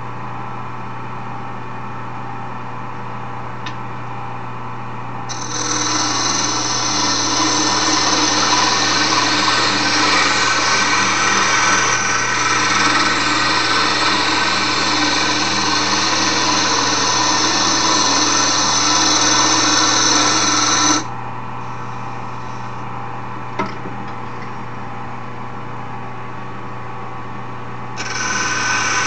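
Wood lathe running with a steady motor hum while a turning tool is held against the spinning wooden handle to smooth it. The tool gives a loud scraping noise from about five seconds in until it is lifted off abruptly around twenty-one seconds, and it cuts in again near the end.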